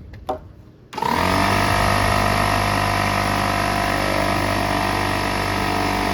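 A motor starting about a second in, rising briefly in pitch and then running steadily and loudly, cutting off abruptly near the end.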